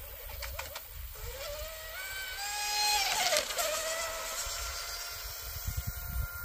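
Brushless electric motor of an RC outrigger boat whining at speed on a 25C Roaring Top lipo. The whine climbs in pitch as the boat speeds up, is loudest about halfway through with a hiss of spray and a dip in pitch as it passes close, then settles to a steady, fainter whine.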